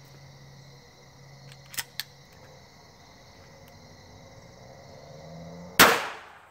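A single loud 9mm shot from a CZ P-07 pistol near the end, cracking sharply and dying away in a short echo, with two light clicks about two seconds in. The round is WD-40-soaked ammunition, and the pistol fails to eject the spent case. Crickets chirp steadily underneath.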